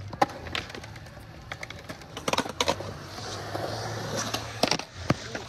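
Skateboard sounds on concrete: scattered sharp clicks and knocks, with a rolling rush of wheels on concrete about three seconds in.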